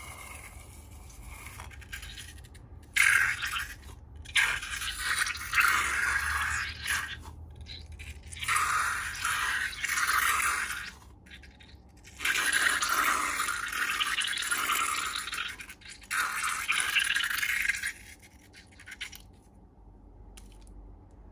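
Scraping, hissing sounds of slime being handled and mixed, in five bursts of one to three seconds each.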